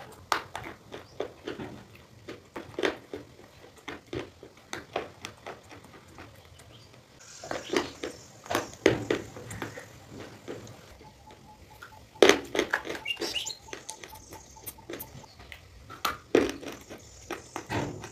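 Close-miked crunching and chewing of slate pencil and shale stone pieces, a run of sharp crackling crunches with louder bites about eight, twelve and sixteen seconds in.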